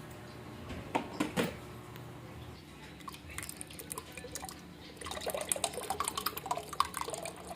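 Two sharp knocks, then evaporated milk poured into the gulaman mixture in the pot, with dripping and splashing that thickens into a steady run of glugging and splashing near the end.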